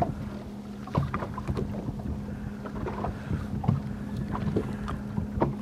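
Light knocks and clicks of a bass being unhooked by hand, over a steady low hum aboard the boat.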